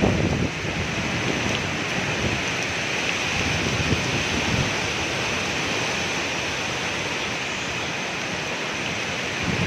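Heavy rain from an approaching cyclone falling steadily, an even hiss with no let-up.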